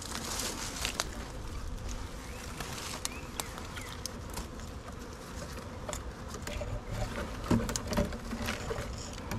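A honeybee swarm buzzing as a steady hum, with scattered sharp clicks and a few louder knocks about three quarters of the way in.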